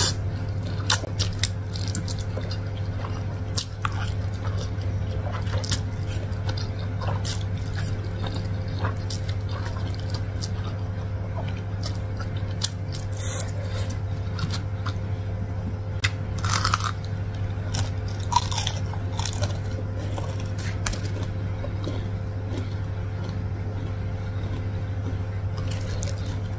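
Close-miked chewing of a mouthful of Samyang carbonara instant noodles: many small wet mouth clicks and smacks, over a steady low hum.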